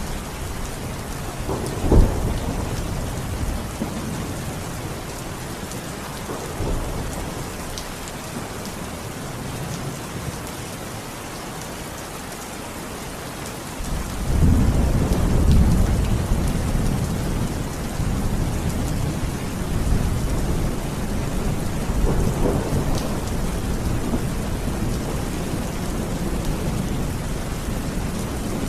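Steady rain with thunder: a sharp thunderclap about two seconds in, then a long low rumble of thunder rolling in about halfway through.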